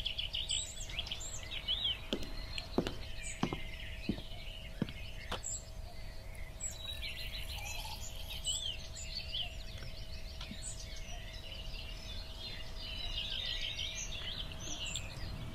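Small birds chirping and twittering busily in bursts, over a low outdoor rumble and a faint steady tone. Several light clicks or knocks come in the first few seconds.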